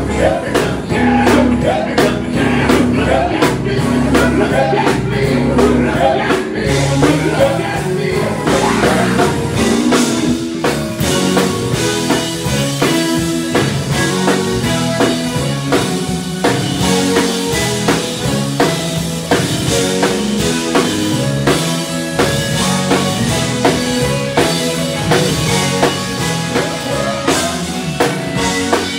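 Live gospel band playing: drum kit, electric bass, electric guitar and keyboard. A voice sings over it in the first part, then the band carries on instrumentally.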